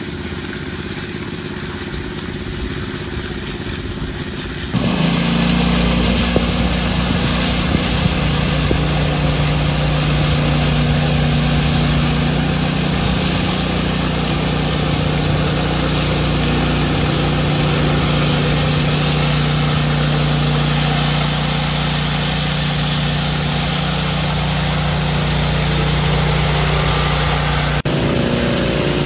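Concrete power trowels running steadily. A walk-behind trowel's small engine runs first; about five seconds in it switches abruptly to the louder, steady hum of a Wacker ride-on power trowel's engine, and near the end back to a walk-behind trowel.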